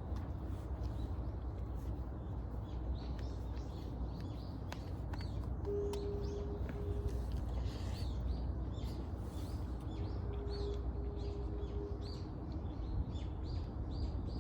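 Birds chirping outdoors, many short calls throughout, over a low steady rumble. A steady tone sounds twice, about six seconds in and again near ten seconds.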